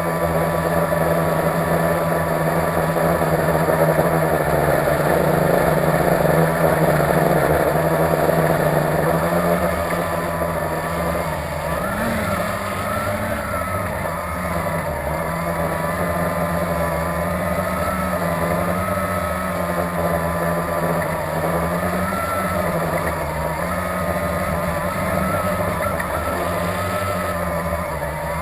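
Blade 350QX quadcopter's electric motors and propellers buzzing steadily in flight. From a little under halfway through, the pitch wavers up and down as the motor speeds change while it manoeuvres.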